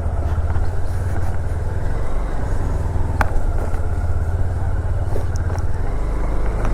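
Honda CB200X's single-cylinder engine running steadily as the motorcycle is ridden, heard from the rider's position with road and wind noise. A single brief high chirp that falls in pitch cuts through about three seconds in.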